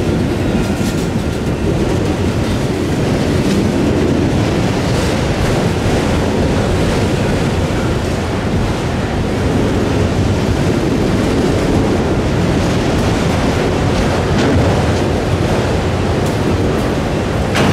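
Freight train cars rolling past: a steady rumble of steel wheels on rail, with occasional faint clicks, and wind on the microphone.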